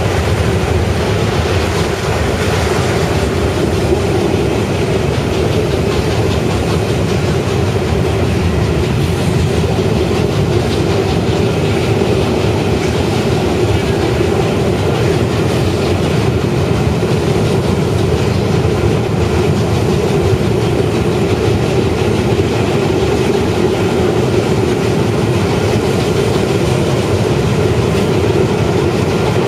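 A train running steadily along the track, with a continuous rumble of wheels on the rails that holds an even level throughout.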